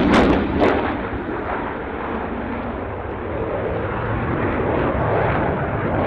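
Dassault Rafale fighter's twin Snecma M88 jet engines at high power during a display manoeuvre: loud, crackling jet noise in the first second, dying down to a steady rumble.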